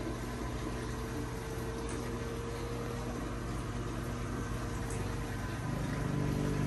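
Reef aquarium equipment running: a steady motor hum with water circulating, from the tank's pumps and protein skimmer. The hum gets a little louder and deeper near the end.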